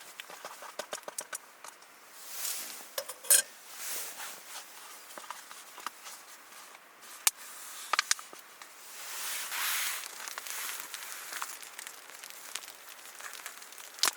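Rustling with scattered sharp clicks and crackles, a few short louder swells of hissing noise, and one loud click about three seconds in.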